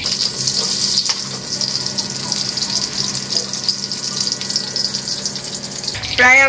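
Eggplant slices sizzling in plenty of hot oil in a steel kadai, an even, high hiss. A voice cuts in just before the end.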